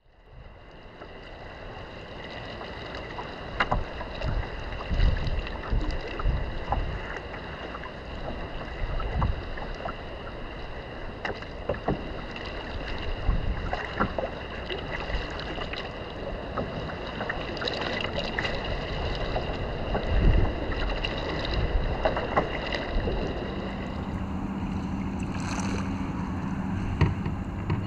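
Kayak on open water: wind buffeting the microphone and water slapping against the hull, with scattered short knocks. A low steady hum comes in near the end.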